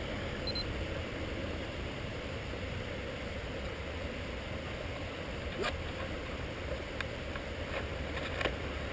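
Steady rushing noise with a few faint clicks in the second half.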